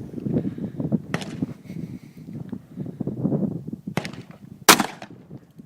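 A single sharp .41 Magnum handgun shot near the end, the loudest sound, after a couple of fainter clicks at about one second and four seconds in over low background noise.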